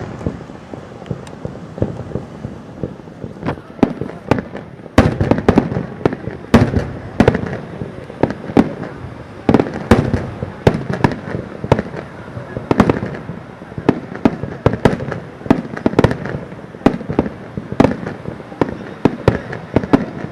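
Starmine fireworks by Marugo: aerial shells bursting in rapid, irregular succession, many sharp bangs and booms overlapping, thickening about five seconds in and going on without a break.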